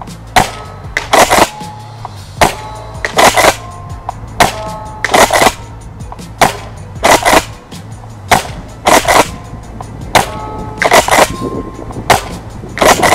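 Tokyo Marui Kel-Tec KSG gas airsoft pump shotgun being fired repeatedly in a steady rhythm, about one cycle every two seconds. Each cycle is a pair of sharp cracks close together.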